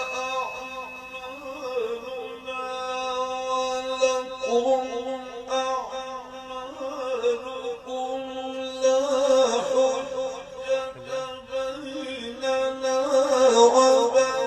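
A man's voice chanting the Quran in melodic recitation, drawn out in long ornamented phrases whose pitch winds up and down, over a steady held tone.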